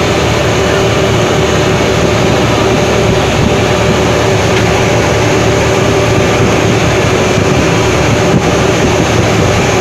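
Boat engine running steadily: a loud, even drone with a constant hum that does not change.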